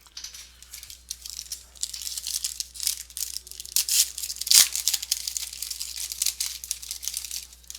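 A baseball-card pack wrapper being torn open and crinkled by hand: a dense run of crackling rustles, loudest about four and a half seconds in.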